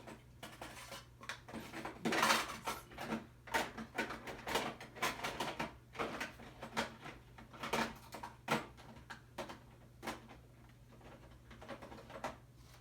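Craft supplies being handled and set down on a desk: an irregular run of light clicks and taps, with a short rustling scrape about two seconds in.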